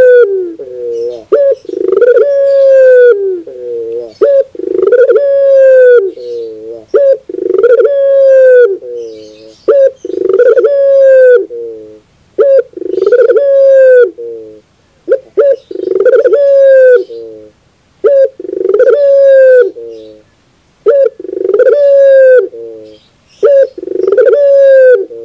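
Puter (domestic Barbary or ringneck dove) cooing over and over, loud. About every three seconds it gives a few short notes and then a long coo that rises and falls.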